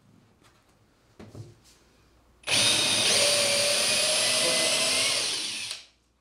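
Cordless drill running at speed, boring a hole into a wooden board, a steady whine with the rasp of the bit cutting. It starts about two and a half seconds in, runs for about three seconds, then winds down and stops. A faint knock comes about a second in.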